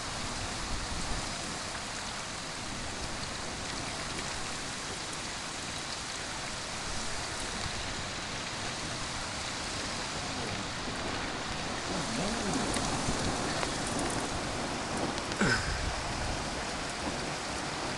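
Steady rain falling in a thunderstorm, an even hiss throughout. A single short sharp knock near the end.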